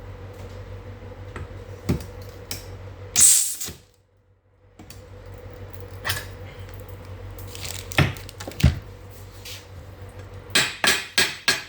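Drawn-arc stud weld from a Soyer PH-3N stud welding gun: a single half-second crackling hiss about three seconds in as the M12 steel stud is fired through its ceramic ferrule at 760 A for 450 ms, over a steady hum. Sharp knocks and clinks follow, a quick run of them near the end.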